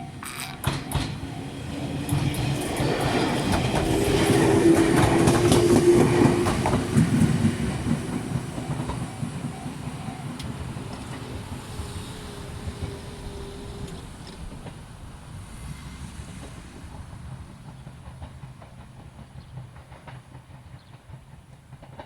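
Fukushima Kotsu Iizaka Line electric train passing over a level crossing, wheels clattering over the rail joints. It is loudest about five seconds in, then fades steadily as it runs away.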